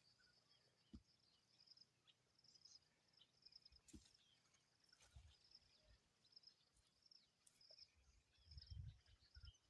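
Near silence with faint insect chirping, a high trill repeating in short pulses, and a few soft low thumps, the last near the end.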